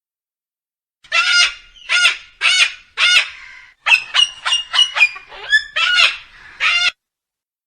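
Geese honking: about a dozen short honks starting about a second in, coming faster in the middle, and stopping about a second before the end.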